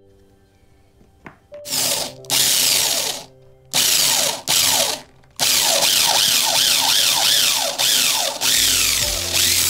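Electric hand drill boring into a wooden stock, starting about two seconds in and running in about five bursts with short gaps, its whine wavering up and down as the bit cuts into the wood.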